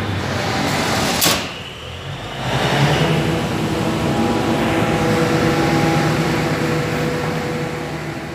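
500 kVA diesel generator set running loud and steady, with a sharp clack about a second in, a brief dip in the sound, then the engine noise again, tailing off toward the end. The set is in a fault where solar back-feed drives it into negative load and overspeed, which the captions say ends with the engine dying and the ACB tripping on undervoltage.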